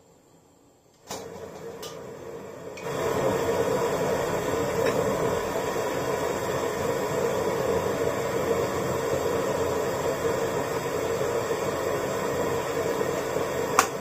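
Portable gas stove burner running with a steady rushing flame noise, which starts about a second in and grows louder near 3 s as the gas is turned up under a steel wok. One sharp click near the end.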